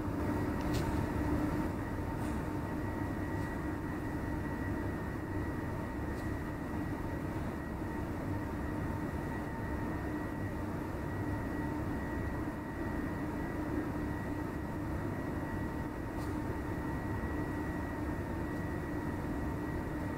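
A steady droning hum and rumble, even throughout, with a few faint clicks.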